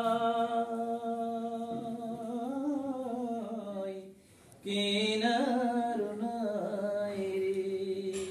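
A man singing a Bengali folk song unaccompanied, holding long wordless notes whose pitch sways up and down. The line breaks off briefly about four seconds in, then a new drawn-out note begins.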